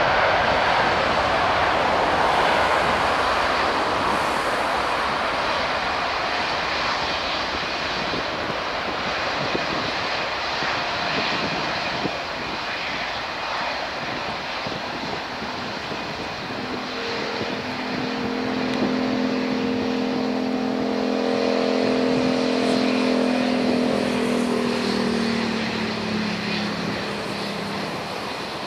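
Airbus A330-941 (A330neo) jet engines, Rolls-Royce Trent 7000s, at takeoff thrust during the takeoff roll: a steady roar that slowly fades as the airliner moves away. In the second half a humming tone comes in and slowly drops in pitch.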